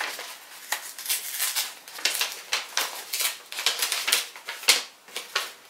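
Paper envelope being opened and a folded letter pulled out: irregular crisp crackling and rustling of paper, with a sharper crackle near the end.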